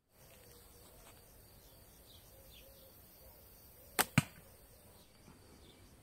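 A shot from an Assyrian-style fiberglass bow: a sharp snap as the string is released, then about a fifth of a second later a second sharp knock as the arrow strikes the carpet-and-foam target.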